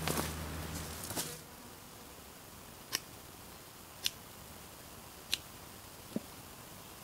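Rustling footsteps through bush for the first second or so, then three sharp clicks about a second apart as a large knife blade strikes a stick, followed by a single dull knock near the end.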